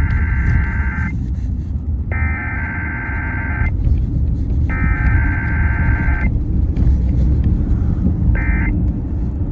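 EAS SAME header on KDKA radio: three harsh digital data bursts of about a second and a half each, sent one after another. Near the end comes one short burst of the same kind, the start of the end-of-message signal. A steady low rumble runs underneath.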